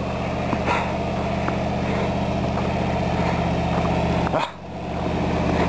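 Snowplow truck's engine idling steadily, with a brief dip in level about four and a half seconds in.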